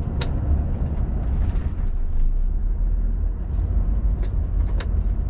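Heavy truck's diesel engine pulling hard in third gear up a steep hill: a steady low rumble, with a few sharp clicks.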